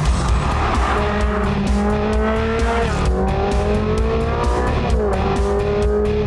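Ferrari 360 Challenge Stradale's V8 revving hard under acceleration: the pitch climbs, drops at a gear change about three seconds in and again about five seconds in, then climbs once more. Music plays underneath.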